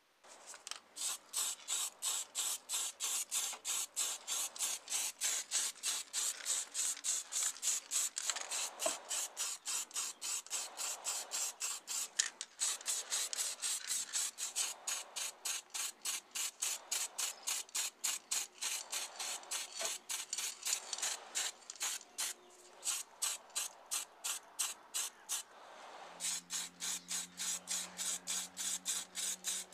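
Aerosol spray-paint can hissing in short, rapid bursts, about three a second, as the nozzle is pressed and released to lay light coats of paint on small plastic model parts.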